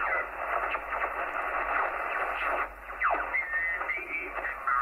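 Kenwood TS-430S HF transceiver's receiver audio as the main dial is tuned down across the 40-metre band: steady band hiss, with signals whistling down in pitch as the dial sweeps past them, the clearest about three seconds in, followed by a brief garbled chirp of a mistuned signal.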